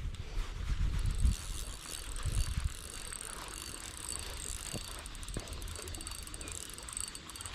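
Ultralight spinning reel being cranked, its gears turning with a fine, rapid ticking as line is wound in. Low rumbles in the first few seconds are the loudest part.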